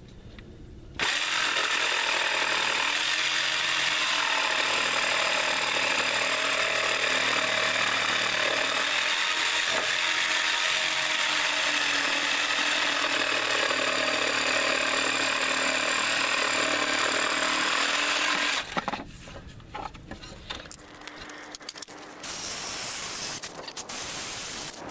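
DeWalt cordless jigsaw cutting a bird's mouth notch into a wooden 2x rafter, running steadily for about seventeen seconds before stopping. It starts again for a short cut near the end.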